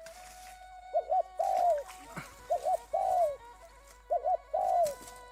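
A dove cooing: two short coos and then a longer, falling coo, repeated three times about a second and a half apart.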